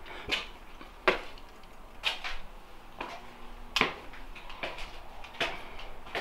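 Footsteps climbing a staircase: steady footfalls, about three every two seconds, each a short scuffing thud.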